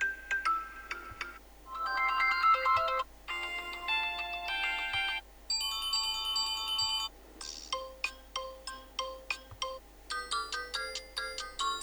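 Tecno Camon 18p smartphone playing previews of its built-in ringtones one after another. About six different short electronic melodies each sound for one to three seconds and cut off abruptly as the next begins.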